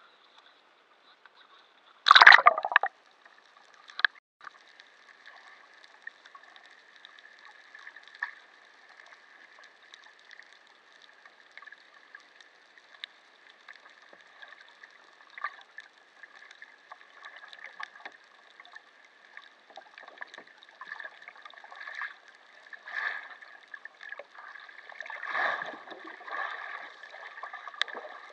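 A loud splash about two seconds in as the camera plunges into the sea. After that comes muffled underwater sound, with crackling, scattered clicks and gurgling bubbles that swell near the end.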